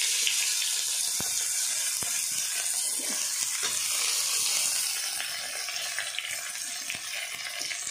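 Sliced onions sizzling in hot mustard oil in an iron kadhai: a steady frying hiss, with a few sharp clicks of the metal spatula against the pan.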